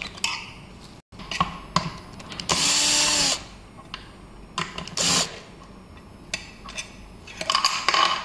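Power drill spinning screws loose in short runs: one of about a second, then a brief one, with plastic panels clicking and knocking as they are handled.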